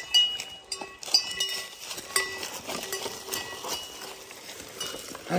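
Metal bells on a pair of plough oxen clinking irregularly as the oxen move, short ringing tones mixed with small knocks.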